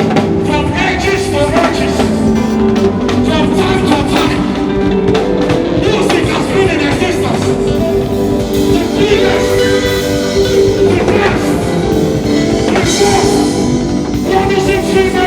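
Music with a drum kit beat and a singing voice.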